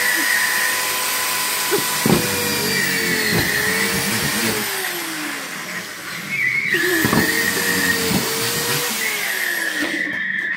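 Hand-held power drill spinning a bunch of zip ties against a cracked LCD TV screen, run twice: each time the motor whine spins up, holds steady, then winds down, with a few sharp knocks.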